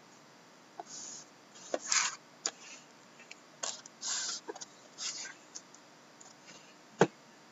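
Plastic shrink-wrap on two sealed trading-card boxes crinkling and crackling in short bursts as hands turn the boxes over, with light taps of the boxes, and a single sharp knock near the end.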